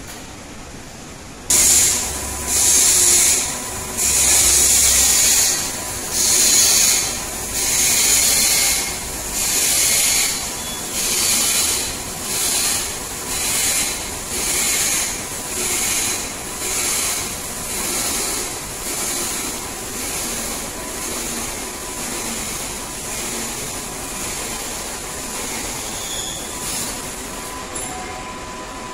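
A high hiss that comes in rhythmic pulses about once a second, starting suddenly and growing steadily fainter until the pulses almost run together near the end.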